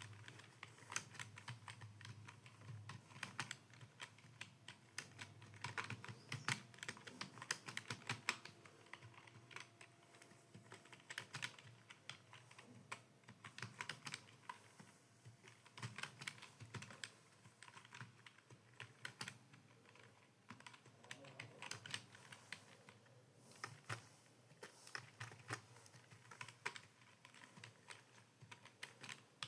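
Computer keyboard being typed on at speed: a fast, uneven run of key clicks with short pauses, in Hindi typing practice.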